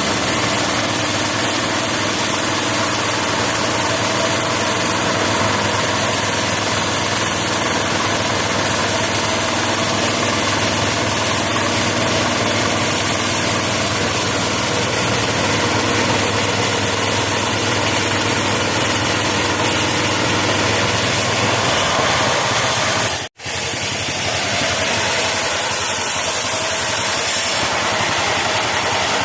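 The 16 HP engine of a homemade bandsaw mill running steadily, cutting out for an instant about three-quarters of the way through.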